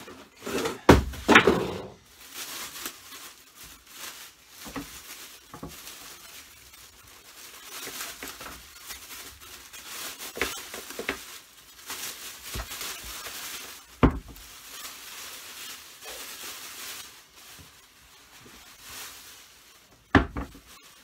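Unpacking and handling noises: packaging rustling and scraping, broken by sharp knocks and thuds as parts are moved. The loudest come about a second in, with a single knock about fourteen seconds in and a double knock near the end.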